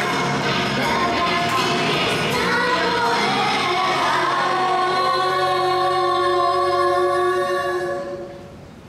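Pop song with female voices singing, its beat dropping out about four seconds in as the song closes on a long held note, which fades out near the end.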